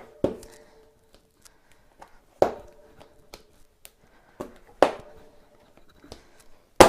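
Tyre lever working the bead of a tubeless bicycle tyre over the rim edge: four sharp snaps about every two seconds, each followed by a short ring from the wheel rim.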